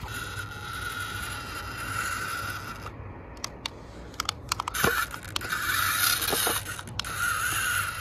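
Electric drive motor and upgraded gearbox of a remote-control model Swaraj 855 tractor, whining steadily under load as it pulls a trolley weighted with a concrete block through sand. The whine stops about three seconds in, a few sharp clicks follow, and it starts again about a second and a half later.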